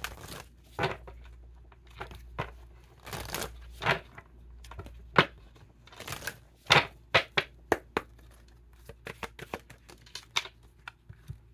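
Tarot cards being handled and pulled from the deck: irregular sharp flicks and taps with papery rustling, coming faster in the second half.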